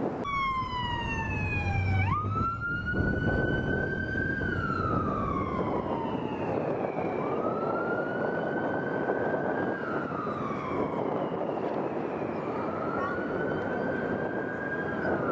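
A siren wailing in slow rises and falls, about once every five seconds. Its tone falls over the first two seconds and then jumps abruptly up. A steady rushing noise runs beneath it.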